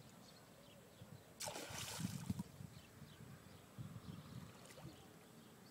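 A short splash on the river surface about one and a half seconds in, over a faint steady background with faint bird chirps.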